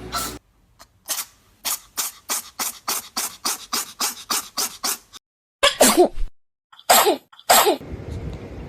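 A cat sneezing: a quick run of short breathy puffs, about five a second, then three louder sneezes with a falling pitch in the last few seconds.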